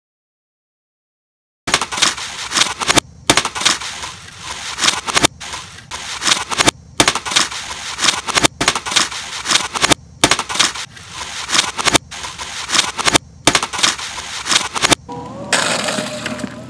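After about a second and a half of silence, a skateboard rolls over rough asphalt and runs over a broken white MacBook, with dense cracking and crunching of plastic and glass. The sound comes in a string of short takes that each cut off abruptly, and near the end it gives way to a steadier rolling sound with a faint tone.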